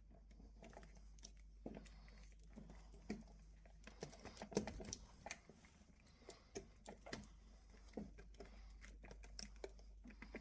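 Faint handling noise: irregular small clicks and taps, densest about four to five seconds in, over a low steady hum.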